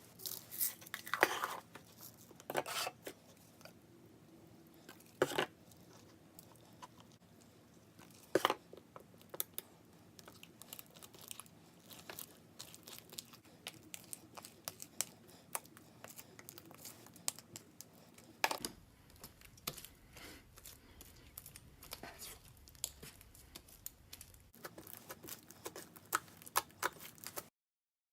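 Clear glue slime being handled by hand, giving many small sharp sticky clicks and pops at an uneven pace.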